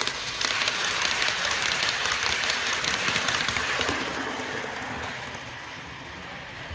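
Model Class 68 diesel locomotive and its coaches running past close by on model track: a fast, dense clatter of wheels over the rail joints, loud for about three and a half seconds and then fading as the train draws away.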